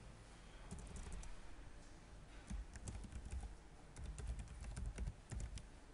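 Typing on a computer keyboard: a run of quick, uneven keystrokes.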